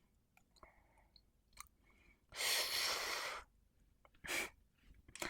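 Faint mouth clicks, then a long breathy exhale close to the microphone about two seconds in, and a shorter breath near the end.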